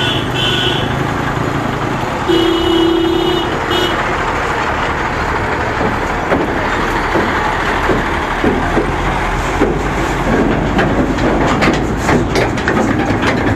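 Heavy diesel trucks running slowly across a railway level crossing in dense traffic. A vehicle horn sounds briefly at the start and again for about a second a couple of seconds in, and a run of rattling knocks comes near the end as a long flatbed trailer crosses.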